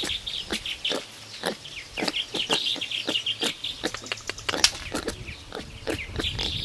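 Animal calls: rapid high chirps mixed with sharp clicks, several a second, coming in irregular bunches.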